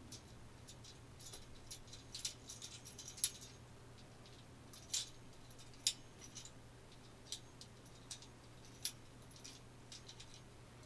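Faint, irregular clicks and light rattles as small hard parts are handled, with a few sharper clicks about three, five and six seconds in.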